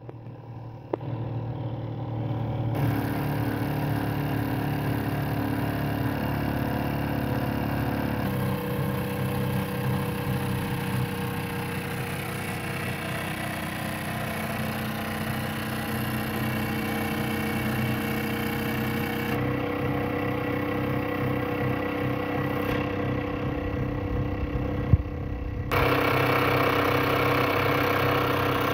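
Wilesco D16 live-steam model steam engine running at a steady speed: a fast, even chuffing and clatter from the cylinder and flywheel. Its tone shifts abruptly a few times, with a couple of sharp clicks.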